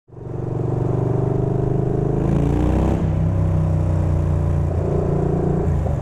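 Yamaha Bolt's air-cooled V-twin running at idle, blipped once about two and a half seconds in, the pitch rising and falling back.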